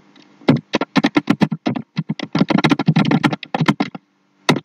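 Typing on a computer keyboard: a fast run of key clicks that stops about four seconds in, then a couple more keystrokes near the end.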